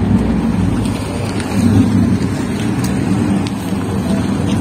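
A car engine running at low revs, a steady low hum that swells slightly about a second and a half in.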